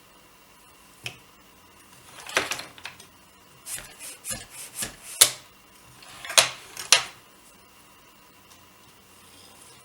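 Wooden clacks and knocks from a small folding tabletop eight-shaft loom being handled. A single click comes about a second in, then an irregular run of sharp clacks, ending with two loud ones.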